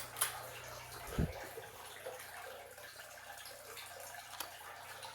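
A ceiling fan light kit's pull-chain switch clicking at the start, then a soft thump about a second in. After that only faint steady hiss with a low hum.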